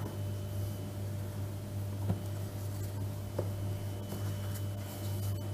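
Steady low hum with two faint light taps, a spoon against the mixing bowl as flour is stirred into soft cocoa cake dough.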